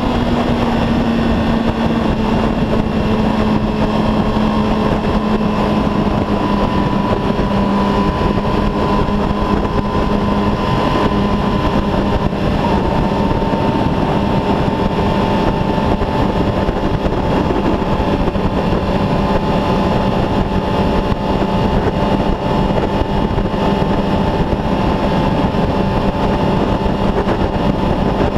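Sport bike engine holding a steady cruise at about 53 mph, a constant drone whose pitch settles slightly in the first second, mixed with wind rushing over the microphone.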